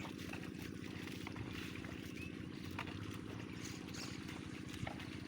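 An engine running steadily with a fast, even low throb. A bird chirps briefly about two seconds in.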